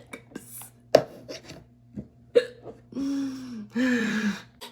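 A young woman's hiccups: a sharp hiccup about a second in and another shortly after two seconds. Near the end come two drawn-out vocal sounds that slide down in pitch.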